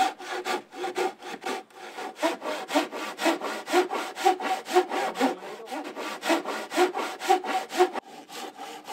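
Japanese hand saw cutting through a timber beam with quick, even strokes, several a second. The sawing stops about eight seconds in.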